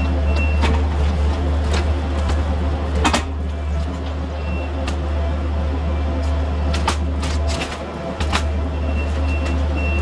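Kubota SVL65-2 compact track loader's diesel engine running steadily while its grapple bucket tears at the garage's wooden wall, with sharp cracks and knocks of wood and siding breaking. The engine note dips briefly a little before the end, and a few short high beeps sound near the start, in the middle and near the end.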